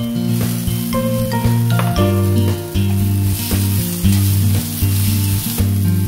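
Chopped ridge gourd and tomato sizzling in hot oil in a cast-iron skillet as they are stirred with a steel spoon. The sizzle is loudest around the middle. Instrumental background music plays over it.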